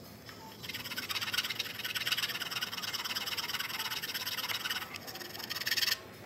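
A small needle file rasping in quick, short back-and-forth strokes as it squares up a small rectangular cut-out in a scale-model camper wall. The filing starts a little over half a second in and stops abruptly about six seconds in.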